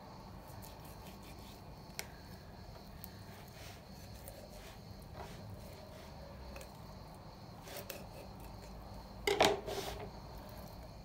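Kitchen knife cutting a raw whole chicken apart on a plastic cutting board to take off the legs: faint slicing and rubbing with scattered small clicks, and a louder knock about nine seconds in.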